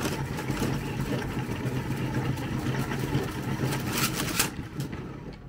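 Filament transfer spool winder running, a small motor humming steadily with a light rattle as it spins the spool and winds 3D-printer filament. There is a short hiss about four seconds in, and then the hum fades as it winds down.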